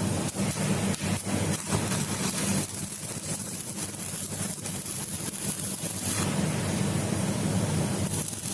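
Electric motor of a homemade lathe running steadily with a low hum, with a few light knocks in the first couple of seconds.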